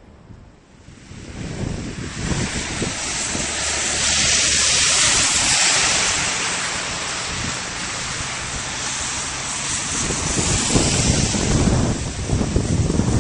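Storm wind gusting hard during a snowstorm, a rushing hiss that swells about a second in and peaks a few seconds later. Wind buffets the microphone with low rumbles, more strongly near the end.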